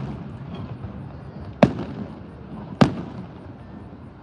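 Two aerial fireworks shells bursting, sharp bangs a little over a second apart, each trailing off in an echo.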